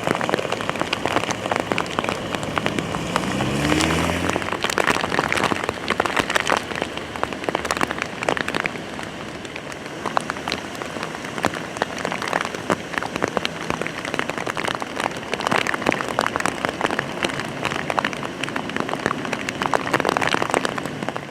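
Heavy rain falling, with many close raindrop impacts ticking against a surface under a steady hiss. A short rising hum, like a passing engine, comes about three to four seconds in.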